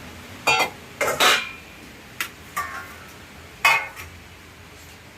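Spoon and dishes clinking and clattering, several separate knocks of metal and crockery, as food is dished out.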